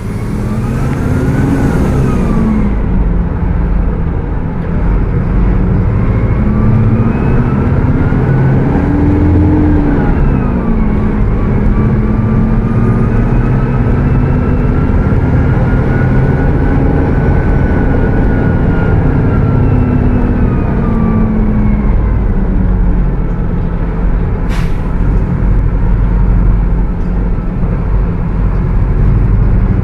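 Mercedes-Benz OF 1722M bus's diesel engine running at high revs under way, its pitch rising and falling as the bus speeds up and slows. Its engine cooling fan (ventoinha) is very loud over it. A single sharp click comes about three-quarters of the way through.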